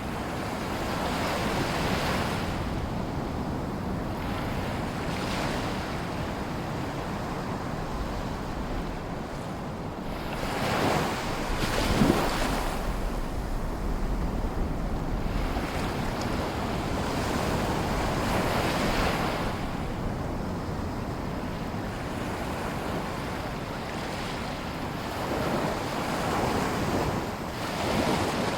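Small sea waves lapping and washing ashore in a lagoon, in swells every few seconds, the biggest about eleven seconds in, with low wind rumble on the microphone.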